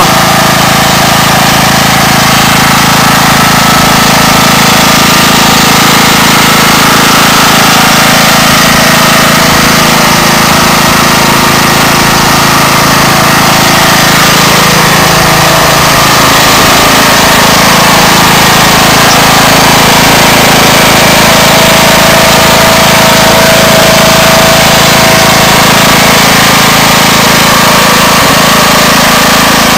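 Riding lawn mower's engine running loud and steady close up as the mower drives along towing a cart loaded with firewood.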